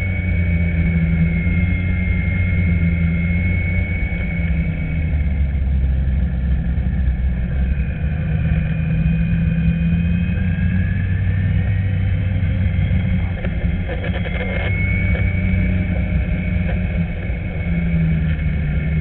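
Snowmobile engine running steadily under way: a low drone with a thin high whine that drifts up and down in pitch, and a brief rattle about two-thirds of the way through.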